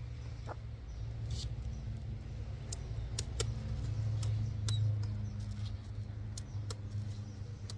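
Scissors snipping through a hen's wing flight feathers, a dozen or so short, sharp clicks at an uneven pace over a steady low hum.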